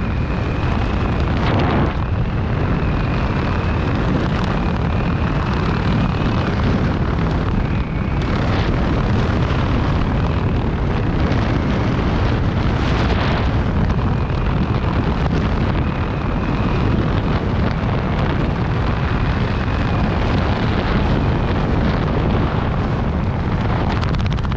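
Steady, loud wind rushing over a skydiver's helmet-camera microphone during the descent, with a faint high whistle that comes and goes.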